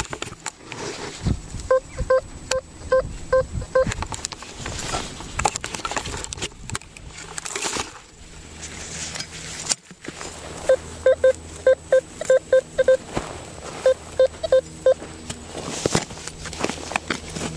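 Metal detector with an elliptical coil giving short beeps of one steady pitch, about three a second, as the coil sweeps over a metal target in the soil. A run of about six comes about two seconds in, and two more runs come from about halfway. Rustling and knocks from the grass and ground lie underneath.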